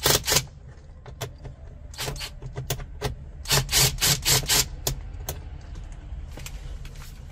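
Clusters of sharp clicks and light rattles, mostly in the first five seconds, from T20 Torx screws being backed out of a car's plastic centre-console trim with a cordless drill-driver and picked out by hand.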